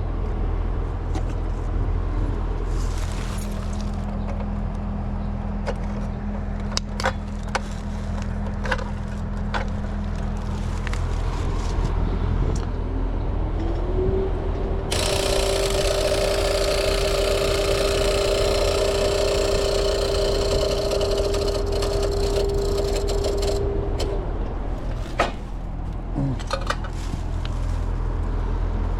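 Old Trane two-stage air conditioner during a start attempt on its second compressor: a steady electrical hum and scattered clicks. About halfway through, a motor whine rises and holds with a rushing noise for about ten seconds, then stops. The second compressor fails to start.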